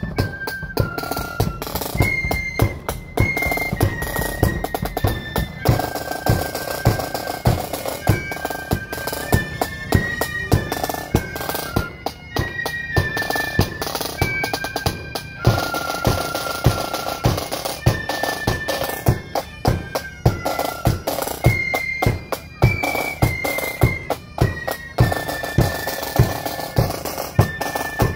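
Marching flute band playing: flutes carry a high stepping melody over snare drums and a bass drum beating steady march time, about two beats a second.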